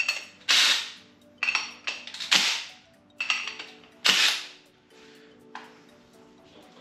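Impact gun with a 19 mm socket fired in about five short bursts, each starting sharply and dying away quickly, tightening the bolts of a 25 mm wheel spacer. Faint background music underneath.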